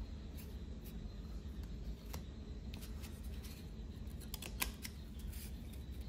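Thin blank metal cards clicking and sliding against one another as gloved hands handle them and pick one out of a stack, with a sharp cluster of clicks about four and a half seconds in, over a low steady hum.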